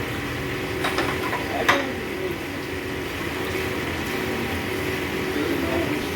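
Steady machine hum with two short, sharp clicks about one and two seconds in.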